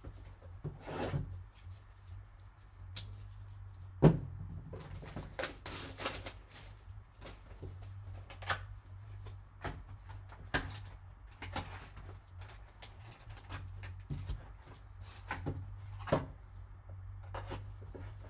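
Rustling and crinkling as a Panini Obsidian football card pack's wrapper is opened and the cards are pulled out and handled, with scattered light taps and one sharp knock about four seconds in. A steady low hum runs underneath.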